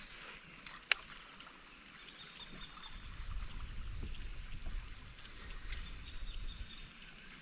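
Water moving around a kayak on a fast-flowing river, with one sharp click about a second in and a low rumble through the middle.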